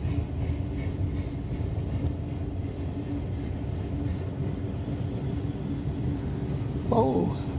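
Freight train boxcars rolling past on the rails: a steady low rumble of wheels and cars.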